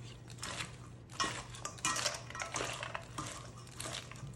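Caesar salad being tossed in a mixing bowl: chopped romaine and croutons rustling, with utensils clinking against the bowl at irregular moments.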